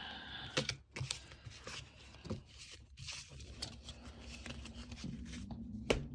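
Foil booster pack crinkling and tearing, with Pokémon trading cards being handled: soft rustling with scattered clicks and one sharp click near the end.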